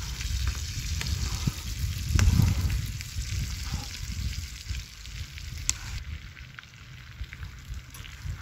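Steak frying in butter in a skillet on a portable butane camp stove: a steady sizzle, with a few sharp clicks of a utensil against the pan. A low rumble runs underneath, with a louder bump about two seconds in. The sizzle eases off in the second half.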